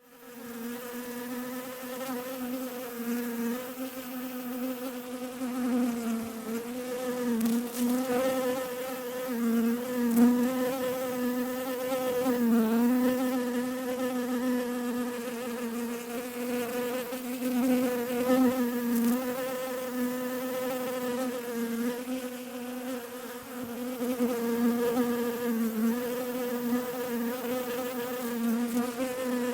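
Bee buzzing in flight, a steady wing-beat hum that wavers slightly in pitch, dipping and swelling about twelve seconds in.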